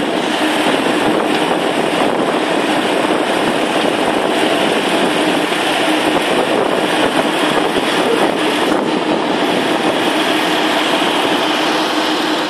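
An engine running steadily close by, a loud even mechanical noise with a faint steady hum under it.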